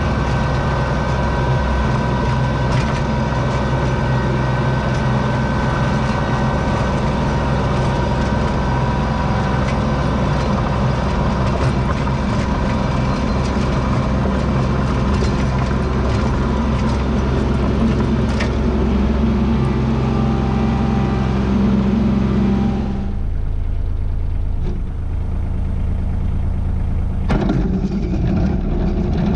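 Kubota LX2610 compact tractor's diesel engine running steadily as its rear blade drags along a snow-covered gravel driveway, with a broad scraping noise over the engine hum. About three-quarters through, the scraping noise cuts out abruptly, leaving only the low engine hum, and comes back shortly before the end.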